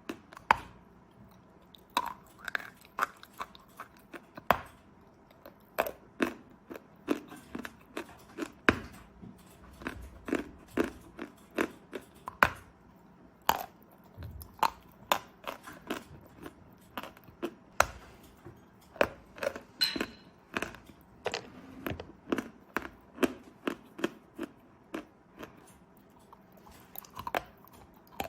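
Dry lumps of 'Belaya Gora' (White Mountain) chalk being bitten and chewed close to the microphone: a long string of sharp, dry crunches at an uneven pace of about one or two a second.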